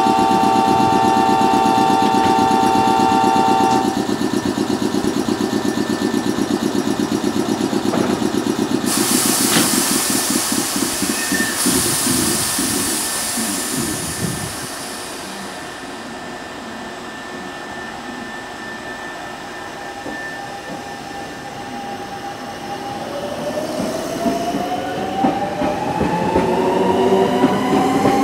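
Semboku 5000 series electric commuter train at a station platform. A steady multi-note tone cuts off about four seconds in, and a burst of air hiss comes near ten seconds. From about 23 seconds the traction motors whine in rising pitches as the train pulls away.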